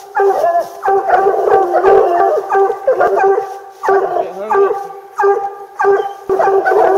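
Coonhounds barking at a raccoon treed above them: loud, drawn-out howling barks repeated about one to two a second, from more than one dog at once.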